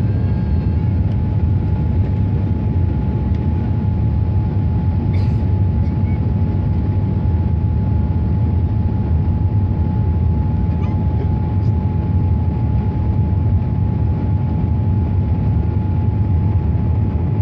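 Boeing 787 cabin noise during the climb-out just after takeoff, heard from inside the cabin: a loud, steady rumble of the engines and the airflow with one thin, steady whine held on top.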